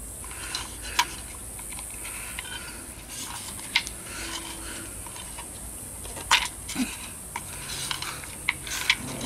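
Irregular sharp clicks and clacks, about seven, from a Tecumseh mower's recoil starter being handled: the pulley turned by hand and the starter rope worked through it.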